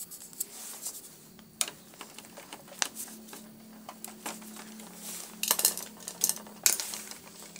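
Scattered clicks and knocks of plastic and metal parts as the print mechanism of a Canon MP287 inkjet printer is unfastened and worked out of its chassis, with a louder burst of clatter about two-thirds of the way in. A faint steady hum runs underneath.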